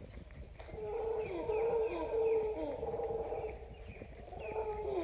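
Mantled howler monkeys howling. The howl starts about half a second in, eases briefly after about three and a half seconds and picks up again, while a bird gives short falling chirps throughout.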